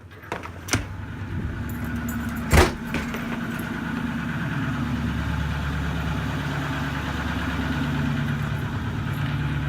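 Pickup truck engine idling steadily, with one sharp knock like a door shutting about two and a half seconds in.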